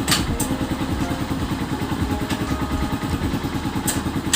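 Skygo Earl 150 motorcycle's 150 cc single-cylinder engine idling with an even, rapid exhaust pulse, with a few sharp clicks near the start and again near the end.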